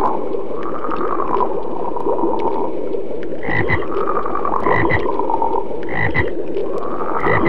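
Frogs croaking in a continuous rough chorus, with four louder croaks about a second and a quarter apart in the second half.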